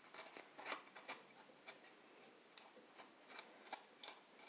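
Kitchen shears snipping into a red bell pepper to cut out its top and core: a series of faint, crisp snips at irregular intervals.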